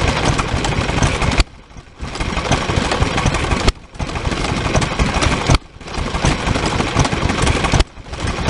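Vintage stationary engines running with rapid, even exhaust beats. The sound cuts out suddenly several times for a fraction of a second.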